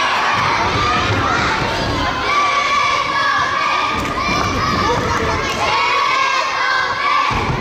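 A crowd of children shouting and cheering at a girls' elementary basketball game, many high voices overlapping in long, held shouts.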